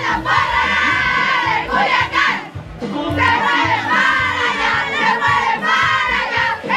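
A group of women chanting a cheer together, many voices shouting and singing at once, with a brief break about two and a half seconds in.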